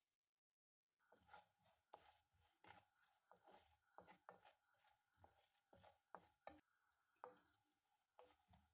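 Faint, irregular knocks of a knife chopping on a cutting board, about one or two a second, starting about a second in.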